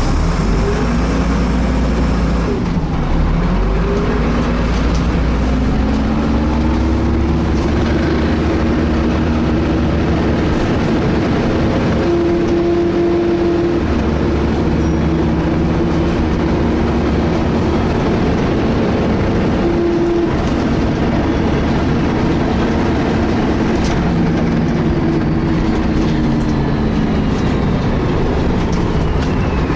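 Inside a DAF-chassis Alexander ALX300 single-deck bus on the move: the engine and road rumble are overlaid by a strange whine, which sounds like a whining cooling fan though its cause is unknown. The whine rises in pitch over the first few seconds, holds, and falls away near the end.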